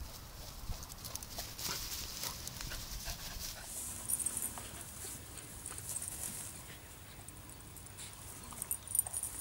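Standard dachshund running through grass, its paws patting and brushing the grass in quick, irregular steps.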